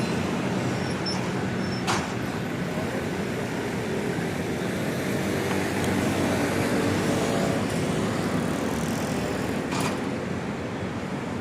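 City street traffic: cars and buses running past in a steady wash of road noise, with a sharp click about two seconds in and another near the end.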